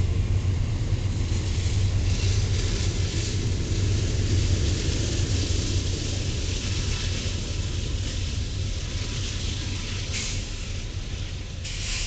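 Norfolk Southern double-stack intermodal freight train rolling past with its diesel locomotives: a steady, loud rumble of engines and steel wheels on the rails, turning briefly hissier twice near the end.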